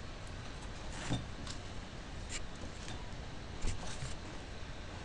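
Steady room hiss and low hum, with a few faint, scattered short clicks or taps.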